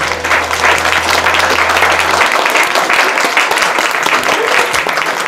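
Guests applauding: dense, steady clapping.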